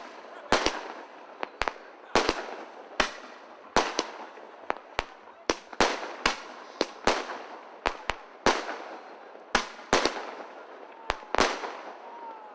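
Aerial fireworks bursting in the sky: a string of sharp bangs, about one or two a second at uneven intervals, each trailing off in an echo.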